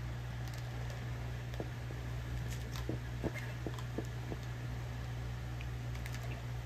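Upholstery steamer running with a steady low hum and faint hiss while its steam head is pushed and dragged over foam. A few soft taps and scrapes come from the head against the foam and wood, about a second and a half to four and a half seconds in. The steam makes the old foam swell.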